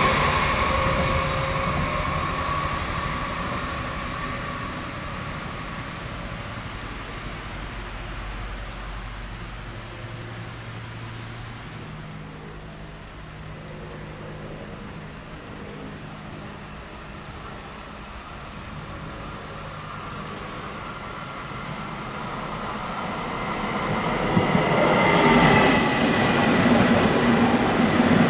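A WestBahn electric train running away from a station stop, its rumble and wheel squeal fading over about ten seconds. Then an S-Bahn electric train approaches and grows steadily louder, with wheel squeal and a brief hiss near the end.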